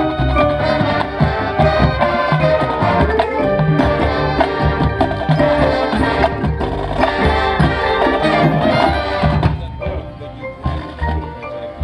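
Marching band show music with drums and mallet percussion; it drops to a softer passage about three-quarters of the way through.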